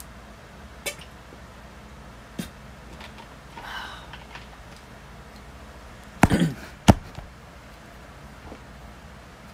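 A few faint clicks over a low room hum, then two sharp knocks about half a second apart, a little past the middle.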